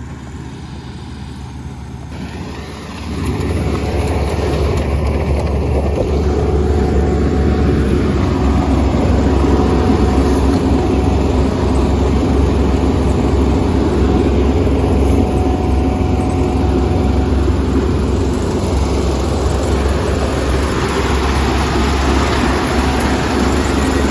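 Kubota ER470 combine harvester running, its diesel engine and machinery making a loud steady drone that gets louder about three seconds in.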